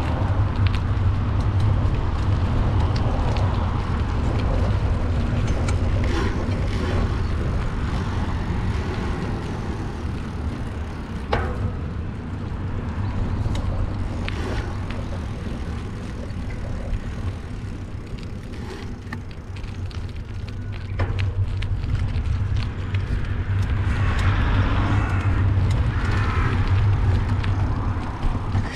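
Wind buffeting a bicycle handlebar-mounted GoPro's microphone while riding: a steady low rumble with road noise from the rolling bike, broken by a few sharp clicks.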